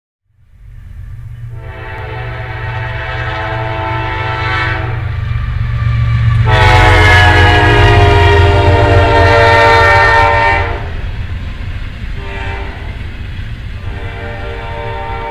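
Diesel locomotive air horn on BNSF ES44AC 6368 sounding the grade-crossing signal: two long blasts, one short, then a long one that is still going at the end. The second long blast is the loudest, as the locomotive passes close by. Under the horn is the low rumble of the locomotives and double-stack intermodal cars rolling past.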